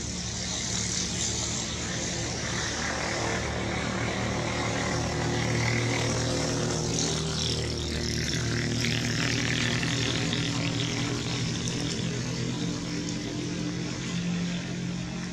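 A steady engine-like drone with a low hum, over an even hiss, holding at much the same level throughout.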